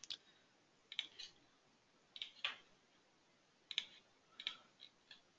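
Faint clicks of a computer mouse, a single click or a quick pair about every second.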